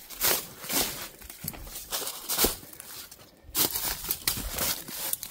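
Footsteps crunching through dry leaf litter, an uneven run of steps with a brief pause about three seconds in.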